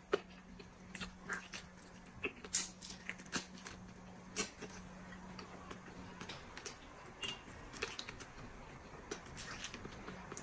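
Close-up eating sounds of someone biting and chewing a braised chicken drumstick held in the hands: faint, irregular wet smacks and clicks, over a faint steady hum.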